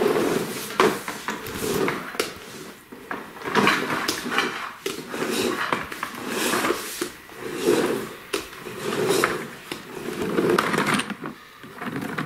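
Plastic wheels of a VTech Sit-to-Stand Ultimate Alphabet Train rolling and rattling over a hardwood floor in uneven surges as it is pushed along, with scattered knocks and clatters.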